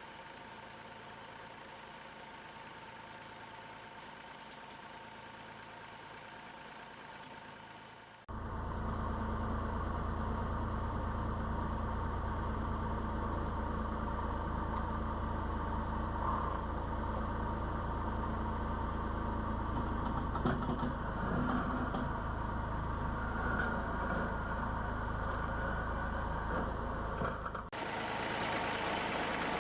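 A vehicle engine running steadily. About eight seconds in the sound jumps abruptly to a louder, deeper engine sound, and it changes abruptly again near the end.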